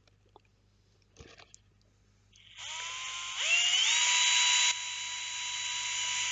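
Electric drill with a 3.3 mm bit boring a pilot hole for an M4 tap into a cast epoxy resin part. The motor starts about two and a half seconds in with a rising whine, is loudest for about a second, then runs a little quieter and stops just at the end.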